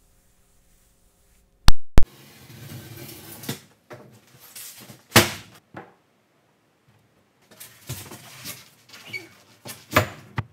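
Handling noises from building a foam-insulated wooden box: two sharp clicks just under two seconds in, then scattered knocks and thuds as rigid foam insulation boards are moved and fitted, with the loudest thud about five seconds in.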